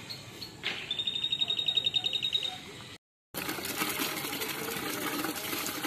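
A bird's high, rapid trill lasting about two seconds. Then, after a brief cut, water gushes steadily from a lever-operated hand well pump into a bucket as the handle is worked.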